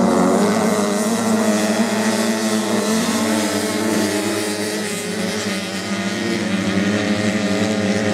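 Several off-road motorcycle engines racing at once, their pitches overlapping and rising and falling as the riders work the throttle. The overall sound dips slightly about five seconds in, then picks up again.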